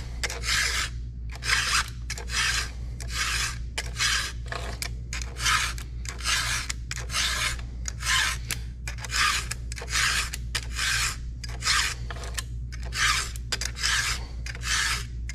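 A 7/32-inch round chainsaw file in a filing guide rasping across the cutters of a 3/8-pitch full-chisel Stihl 33 RS chain held in a vise, sharpening at 25 degrees. Even, repeated push strokes, about one and a half a second.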